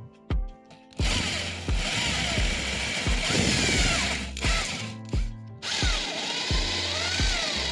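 An electric power tool running in bursts, its pitch rising and falling as the speed changes, with two short stops in the middle. Background music with a steady beat plays throughout.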